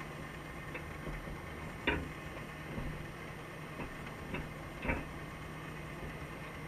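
A female Dungeness crab moving about on the wire mesh of a crab pot underwater: a few sharp clicks and knocks, the loudest about two seconds in and just before five seconds, over a steady low underwater hum.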